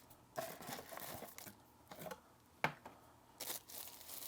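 Rustling and light clicking of items being handled and unpacked from a box, with one sharp click about two and a half seconds in.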